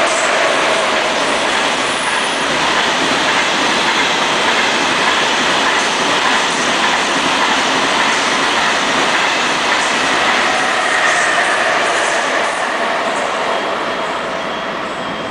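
Passenger train moving out along the station tracks: a steady rumble and clatter of wheels on the rails, with a faint high squeal about eleven seconds in. The sound eases slightly near the end as the train draws away.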